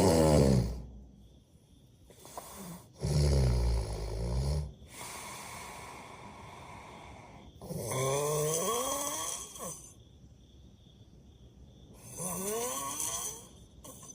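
A person snoring. One snore trails off at the start and three more follow a few seconds apart, each lasting one to two seconds with a rough, climbing pitch, and fainter breathing in between.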